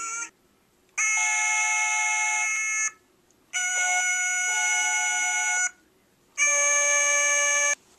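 Three long, steady chords from a musical instrument. Each lasts about two seconds, several notes sound together at a fixed pitch, and near-silent pauses of about half a second separate them.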